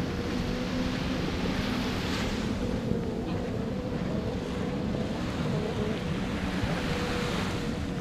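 Small waves washing onto a sandy beach, swelling twice, with wind buffeting the microphone and a boat engine humming steadily underneath.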